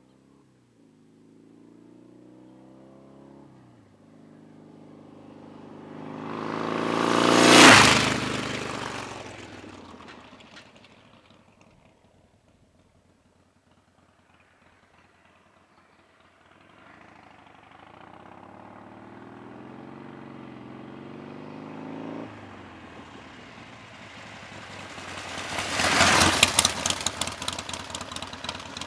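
Harley-Davidson Nightster 1200's V-twin engine accelerating through the gears as the motorcycle comes past close by. It is loudest about eight seconds in, then fades away. The bike then comes back and passes again, building to a second loud peak near the end.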